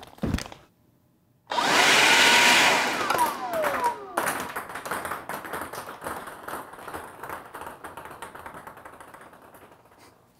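Electric blower of a ping pong ball gun switched on in a loud rushing burst of about two seconds, then its motor winding down in a falling whine. The blown-out ping pong balls then clatter and bounce in many light clicks that thin out and fade over several seconds; the balls shot out the top of the loading tube rather than down the barrel.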